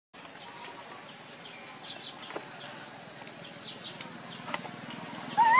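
Quiet outdoor ambience with faint scattered bird chirps and a few light clicks. Near the end comes one short, loud call that rises and then falls in pitch.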